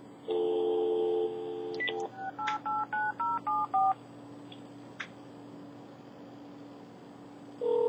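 Cordless home phone handset: a dial tone for about two seconds, then a quick run of about seven touch-tone beeps as the number is redialed, then a quiet line while the call goes through. A steady tone starts just before the end.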